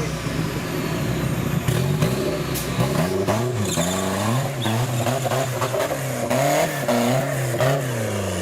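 Off-road 4x4 engine revving up and down again and again, its pitch rising and falling about once a second, with scattered knocks and clatter.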